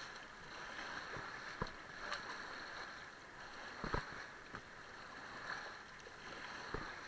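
Whitewater river rushing past an inflatable raft: a steady hiss of moving water, with a few short knocks.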